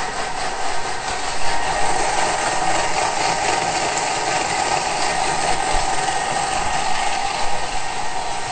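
Thermomix TM6 food processor running steadily at speed 6, its motor and blade whirring as it blends tahini sauce (tahini, water, lemon juice and salt).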